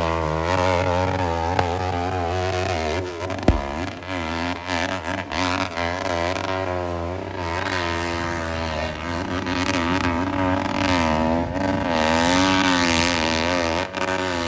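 Four-stroke competition dirt bike engine revving hard while climbing a steep dirt hill. Its pitch rises and falls again and again as the throttle is worked and the rear wheel spins and grips.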